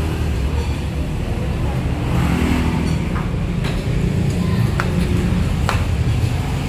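Steady low rumble of road traffic, with a few short sharp clicks in the middle.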